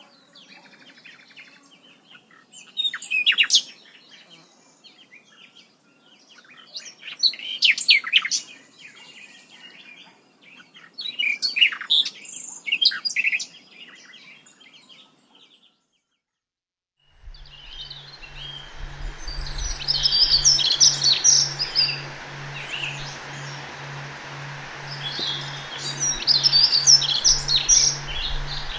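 Birds chirping and calling in short bursts. After a brief dropout about 16 s in, busier chirping continues over a steady hiss and a low, evenly pulsing hum.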